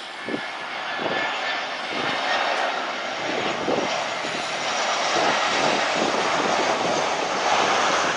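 Airliner engines running at high power, a dense roar that grows steadily louder over the first few seconds and then holds, with gusts of wind buffeting the microphone.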